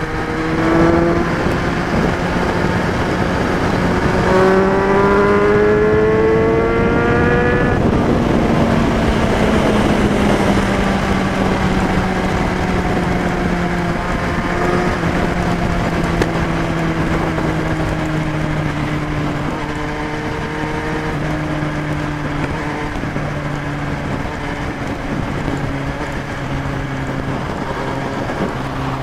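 Kawasaki Z1000's inline-four engine through a Hurricane Evolution aftermarket exhaust, revving up hard: its pitch climbs briefly at the start and again for about four seconds, then settles into a long, slowly falling drone under a steady rushing noise.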